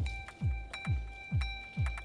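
Background electronic music with a steady kick-drum beat, about three beats a second, under sharp ticking percussion and held high tones.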